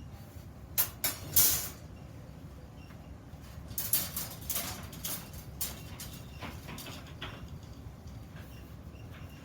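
A few short scrapes and knocks of metal workpieces being handled, about a second in and again in a cluster a little before halfway, over a steady low hum.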